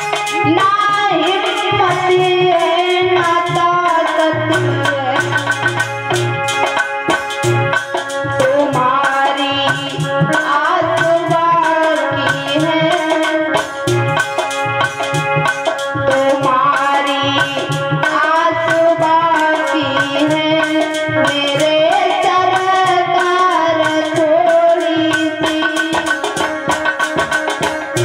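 Instrumental music of a Hindi devotional bhajan: tabla keeping a steady rhythm under a gliding melodic lead line.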